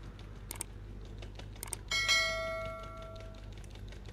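Stainless steel mesh sieve tapped and knocked against a stainless steel mixing bowl while sifting flour: a run of light ticks, with one harder strike about two seconds in that rings like a bell for over a second.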